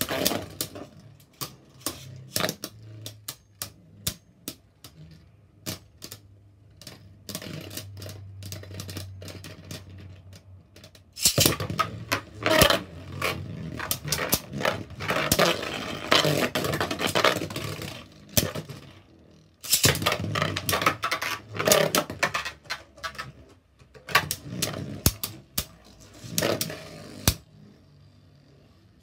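Two Beyblade Burst spinning tops, Vise Leopard L4 and Dusk Balkesh B5, clashing in a plastic stadium. There are scattered sharp clicks, then two long stretches of rapid clattering in the middle, then scattered clicks again.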